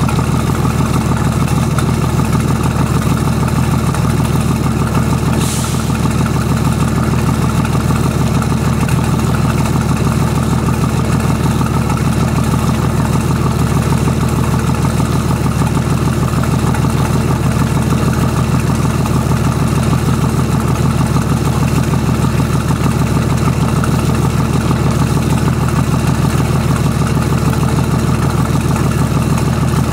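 VM/BMW D190 marine diesel engine running steadily at idle, with water splashing from its outlet hose onto the pavement. The engine runs badly, which the owner puts down to a leaking shaft seal at the front of the injection pump.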